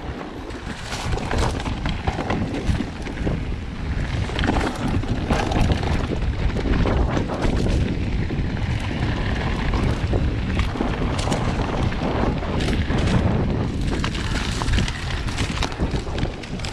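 Wind rumbling on a GoPro microphone as a mountain bike rides down a trail, with tyre noise and frequent knocks and rattles from the bike over the bumps.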